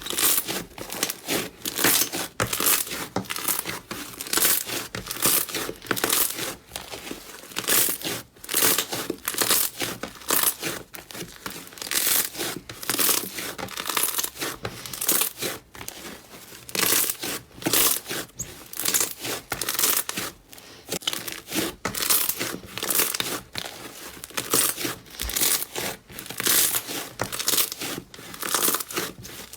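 Slime being squeezed and stretched by hand, giving repeated bursts of crackling, crinkly noise, about one or two a second.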